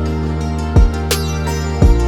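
Instrumental background music: steady held tones over a low drum hit about once a second.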